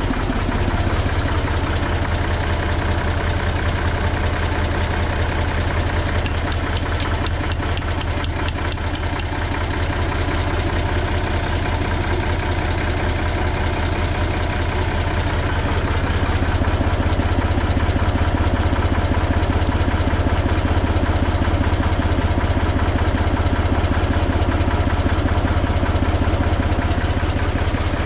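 An engine idling steadily with a low, even drone. A short run of rapid light clicks comes about six to nine seconds in.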